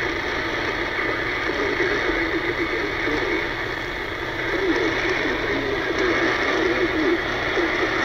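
AM radio reception of an Emergency Alert System flash flood warning: a muffled, garbled announcer voice buried under steady static.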